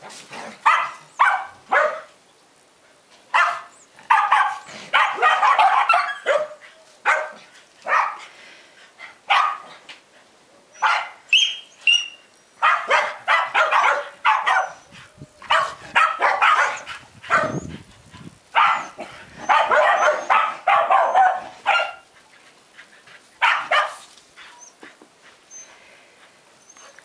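White Hungarian Puli barking in runs of quick barks separated by short pauses, the barking dying away near the end.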